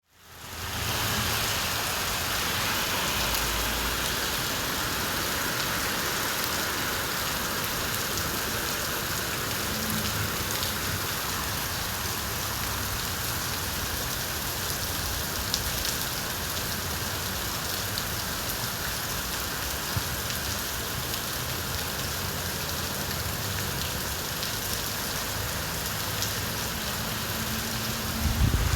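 Steady rain falling on surfaces, fading in over the first second, with a few single drops ticking. A brief low rumble rises near the end.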